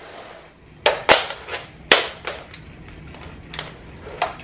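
Handling sounds of plugging in a power adapter among cables: several sharp plastic clicks and knocks, the three loudest about one to two seconds in, followed by lighter ticks and rustles.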